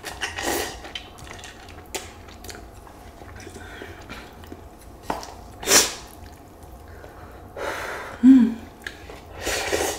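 A person eating cold noodles: slurping and chewing, with several short breathy bursts, the loudest about six seconds in, and a brief hum near the end.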